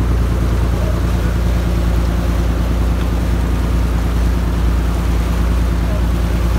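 A fishing boat's engine running steadily under way, heard on board as a constant low drone.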